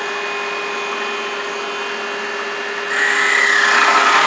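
Wood lathe running steadily at high speed with a small bead blank spinning between centres. About three seconds in, a hand-held turning tool starts cutting the spinning wood and the sound gets louder with a hiss of cutting.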